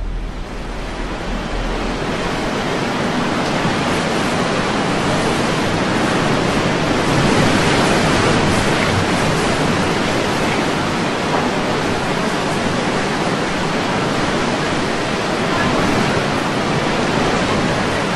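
Hurricane surf and wind: a loud, steady rush of crashing water and gusting air, with no distinct events.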